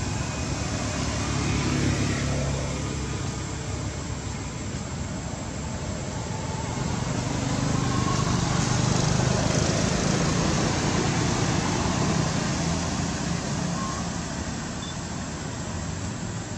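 Steady rushing background noise with a low rumble, growing louder in the middle and easing off toward the end.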